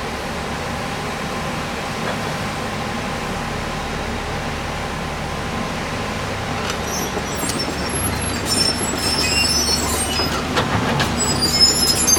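2018 JCB JS205LC tracked excavator running steadily. From about halfway, high metallic squeals and a few clanks join in as the machine moves, growing louder near the end.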